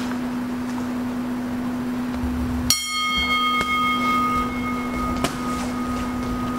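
A boxing round bell strikes once a little under three seconds in, its ring fading slowly: the signal to start the round. A sharp knock follows a couple of seconds later, over a steady low hum.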